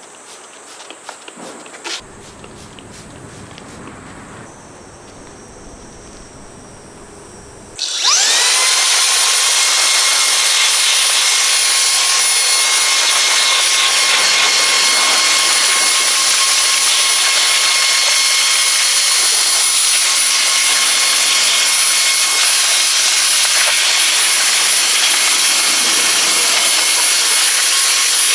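Handheld electric air-duster blower starting about eight seconds in. Its whine rises quickly and then runs steady and high-pitched over a rush of air as it blows water off the car during drying. Before it starts there are only quieter scattered clicks.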